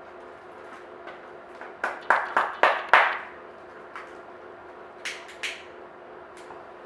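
A run of five sharp knocks in quick succession, then two fainter ones a couple of seconds later, over a steady low hum.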